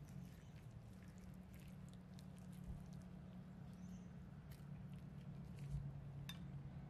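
Faint crackling and light clicks of a metal spoon breaking through crisp fried fish skin and scraping on the platter, with one sharper click near the end, over a low steady hum.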